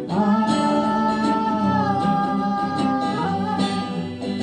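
Live song with acoustic guitar: a voice holds one long sung note for about three seconds, dipping slightly in pitch about two seconds in, before the guitar and singing go on.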